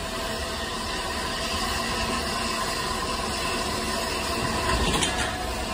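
Passenger coaches rolling slowly along the track: a steady rumble and hiss, growing louder with a brief clatter about five seconds in.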